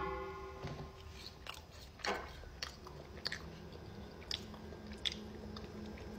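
A person chewing a mouthful of food, with a few faint, crunchy clicks scattered through.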